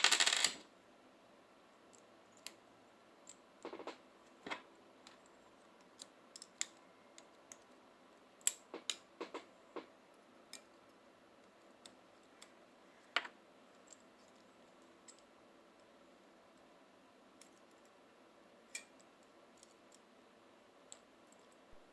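Scattered faint clicks and taps with long gaps between them, from small repair tools and parts on a Xiaomi Redmi Note smartphone being worked on during a battery replacement.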